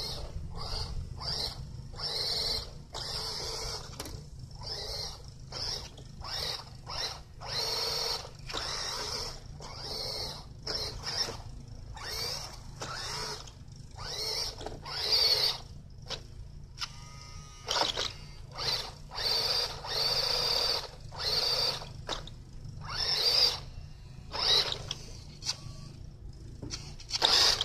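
Toy RC Ice Charger's small electric motor and gearbox whining in short bursts, roughly one a second, as the throttle is pulsed on and off. The loudest bursts come in the second half.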